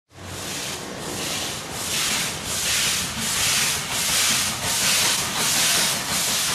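Steam locomotive on the move, its exhaust chuffing in even beats about twice a second over a steady rushing noise; the sound cuts in abruptly at the start.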